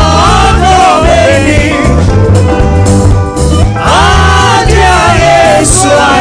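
Live gospel worship music: a singer's voice over a band with drums and a heavy bass line, with one sung phrase at the start and another about four seconds in.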